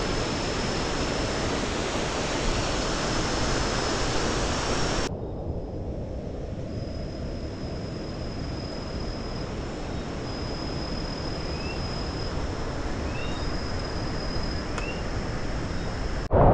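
Steady rushing of the second Carbet falls, a 110 m waterfall. About five seconds in, the sound cuts suddenly to a quieter, duller rush with a thin, steady high tone over it. Three short rising chirps come near the end.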